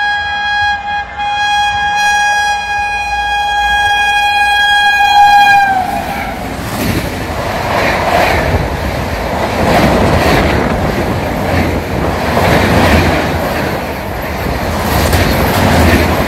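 Express train's locomotive horn sounding one long shrill blast, with a brief break about a second in, its pitch dropping as the locomotive passes about six seconds in. Then the coaches rush past at speed, with the rhythmic clatter of wheels over the rail joints.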